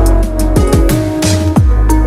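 Electronic background music with a heavy, steady bass and a driving drum beat.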